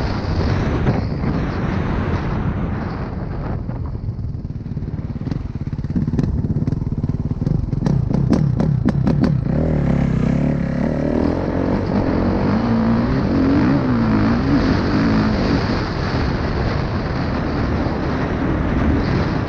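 Kawasaki KX450 dirt bike's single-cylinder four-stroke engine running hard under throttle while being ridden, its pitch rising and falling as the throttle is worked, with a stretch of quick sharp revs about seven to nine seconds in.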